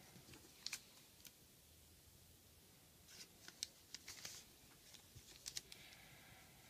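Faint rustling and light ticks of paper being handled: a paper strip being fitted onto a folded paper model and pressed flat. The crisp ticks come in short clusters about a second in, around three to four seconds, and again near five and a half seconds.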